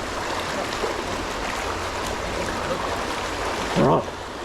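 Stream water running steadily. Near the end comes a brief loud vocal exclamation.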